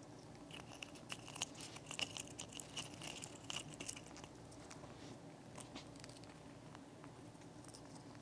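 An Amazon parrot cracking and chewing a walnut with its beak: a quick run of faint crunches and clicks, thinning out after about four seconds.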